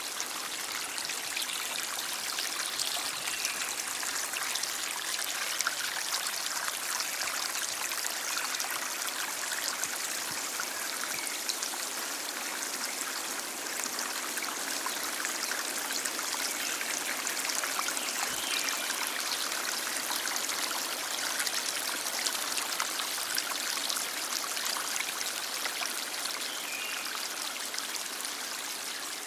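A stream flowing steadily: an even, bright wash of running water that keeps up without pause.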